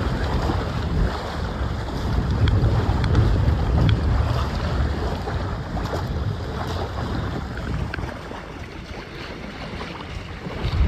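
Wind buffeting the microphone, with water rushing and splashing past the hulls of a small sailing catamaran under way. The wind rumble eases about eight seconds in.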